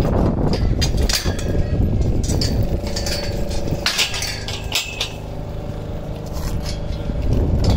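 Metal parts of a steel greenhouse truss clinking and knocking during assembly, over a heavy low rumble. A steady droning hum comes in about three seconds in and fades near the end.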